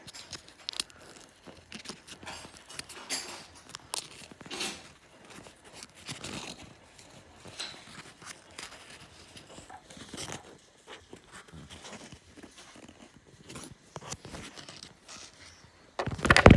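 Paper crinkling and rustling in irregular crackles as a small folded paper amulet is picked open by hand. A louder handling bump near the end.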